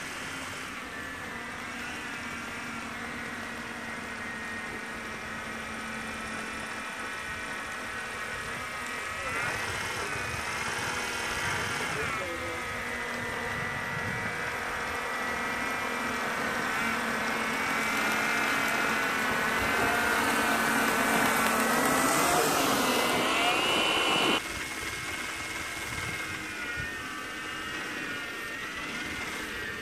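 Motor of a 3D-printed mini snow blower on a remote-control snowcat, whining as it throws snow, its pitch dipping and rising as the load changes. The whine grows louder through the middle, stops abruptly about 24 seconds in, and then a quieter whine of the same kind carries on.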